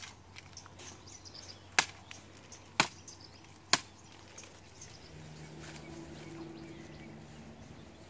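Machete blade chopping into a tree trunk: four sharp strokes about a second apart in the first four seconds.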